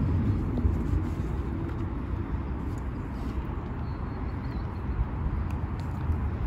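Wind buffeting the microphone: a steady, uneven low rumble, with a few faint ticks.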